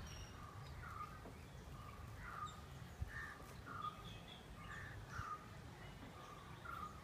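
Faint background of birds giving short calls over and over, about one or two a second, over a low steady rumble.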